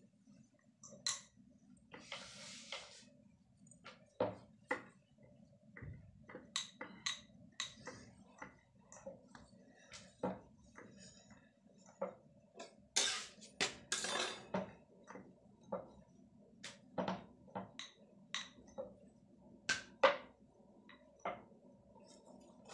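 Rolling pin knocking and clacking on a round rolling board as roti dough is rolled out: irregular light taps throughout, with a rustling scrape about two seconds in and a longer, louder one around thirteen seconds. A faint steady low hum runs underneath.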